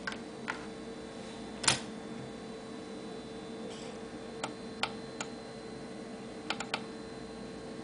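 Ten-Tec T1380 QRP transceiver receiving on the 80 m band: steady receiver hiss with an unbroken steady tone and scattered sharp clicks, the loudest about two seconds in.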